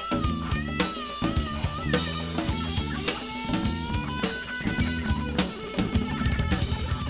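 Live rock band playing an instrumental passage. A drum kit keeps a steady beat on kick and snare while a Telecaster-style electric guitar plays a lead line of bending, sliding notes.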